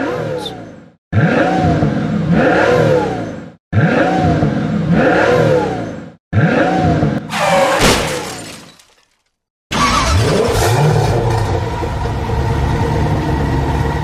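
Vehicle engine sound revving up and down in three similar bursts, each cut off by a short silence, then running steadily from about ten seconds in.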